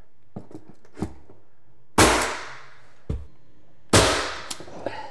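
Pneumatic nail gun firing twice, about two seconds apart, each shot a sharp crack with a short hiss of exhaust air as nails are driven into baseboard trim. Faint clicks of the tool being handled and repositioned come between the shots.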